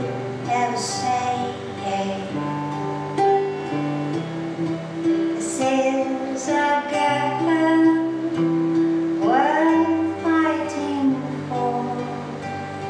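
A song played on acoustic guitar, in a passage between sung lines, with a note that slides up about nine seconds in.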